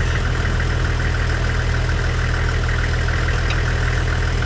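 Four-wheel-drive vehicle's engine idling steadily with a low, even rumble and no revving.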